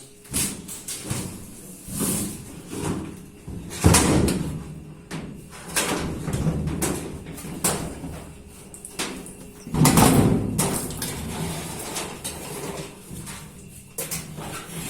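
Knocks, clanks and scraping as a washing machine is handled and worked on during disassembly, with two heavier thumps about four seconds in and again near ten seconds.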